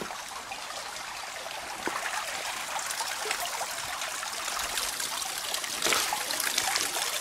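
Shallow, clear mountain stream trickling over gravel and stones, a steady babble, with a few short sharper sounds now and then.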